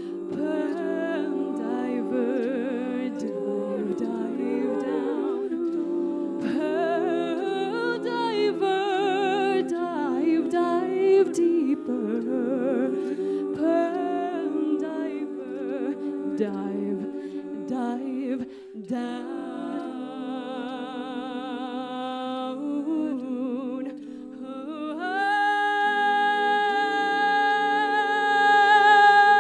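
Women's a cappella group singing: backing voices hold chords under a female lead, with a brief dip about two-thirds of the way through. Near the end the lead soloist belts a long, loud held note over the group.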